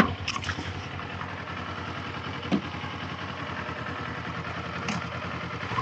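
Motorcycle engine idling steadily, with a couple of short clicks about a second in.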